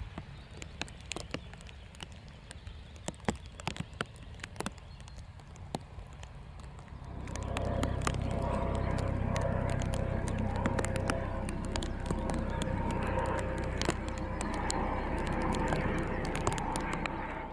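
Rain ticking and pattering over the low rumble of a Boeing 737-800's CFM56 turbofans at taxi power. About seven seconds in, the engine noise grows much louder and holds steady with a whine in it, as the jet turns so its engines face the listener.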